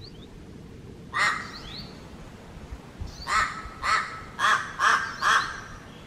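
Crow calling: one caw about a second in, then after a pause a run of five quick caws about half a second apart.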